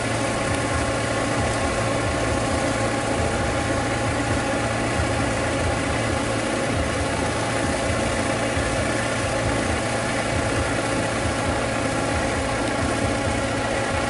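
Shibaura SD 2200 tractor engine running steadily under load as it drives a channel-cutting rig through a flooded paddy, over a wash of mud and water being thrown out.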